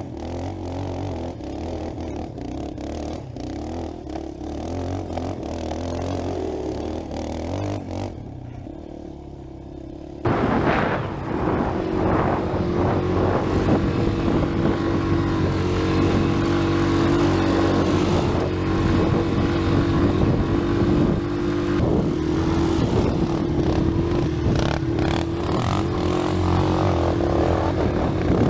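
Four-wheeler (ATV) engine running, its pitch wandering up and down. About ten seconds in the sound jumps abruptly to a louder, steady engine note with rattling noise over it.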